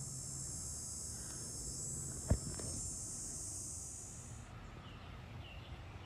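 Insects buzzing in a steady high chorus that cuts off suddenly about four and a half seconds in. A single sharp knock sounds a little past two seconds in.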